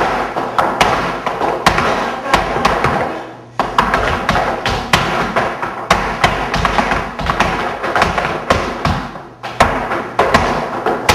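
Flamenco shoes striking a wooden floor in footwork: a dense run of sharp heel and toe strikes, briefly dropping off about three and a half seconds in before resuming.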